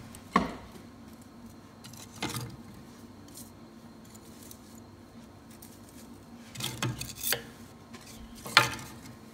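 Split kindling sticks knocking and clattering together as they are leaned into a teepee in a wood stove's firebox: a few sharp wooden knocks, a quick run of several about seven seconds in, and the loudest one near the end.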